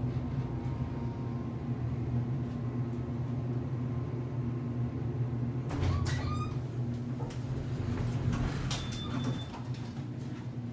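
Passenger elevator cab running with a steady low hum. A cluster of clicks and clunks comes a little past halfway, then a short high beep near the end, after which the hum drops.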